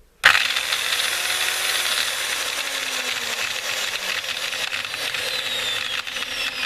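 Makita M0921 angle grinder switched on and running, its gearbox giving a harsh rattling grind: abnormal gearbox noise from a bevel gear pair with a good number of teeth stripped or worn off.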